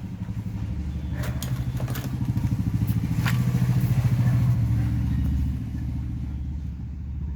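An engine running with a rapid, even chugging that swells for a few seconds and then eases off.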